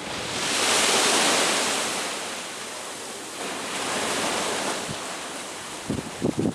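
Ocean surf washing against the shore, swelling about a second in and again around four seconds. Wind buffets the microphone in a few short gusts near the end.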